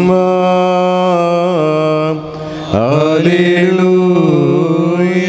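Malayalam Syriac Orthodox liturgical hymn chanted in long drawn-out notes. A held note breaks off about two seconds in, and after a short pause another long note follows that wavers slowly up and down in pitch.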